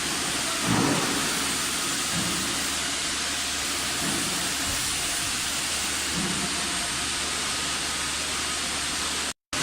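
Steady hiss of rushing air, with a few faint low thumps under it; the sound cuts out briefly near the end.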